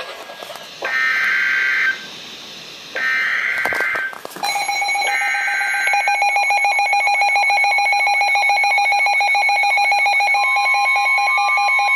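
Emergency Alert System data header: buzzy, screeching digital bursts about a second long, repeated with short gaps, then from about four and a half seconds in a steady, loud electronic alert tone that holds, with a second higher tone joining near the end.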